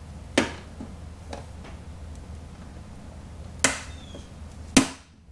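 Vinyl-wrapped plastic side grill insert being pressed into a BMW M4's front fender vent, its clips snapping into place: three sharp clicks, one shortly after the start and two close together near the end, with a few fainter taps between, over a low steady hum.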